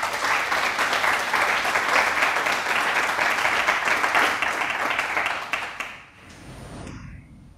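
Audience applauding at the end of a talk, the clapping dying away about six seconds in.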